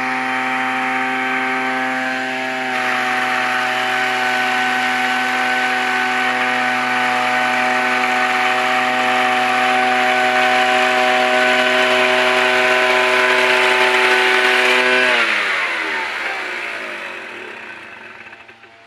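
Small engine of a two-person motorized tea harvester running steadily, then slowing about fifteen seconds in, its pitch falling as it winds down and fades.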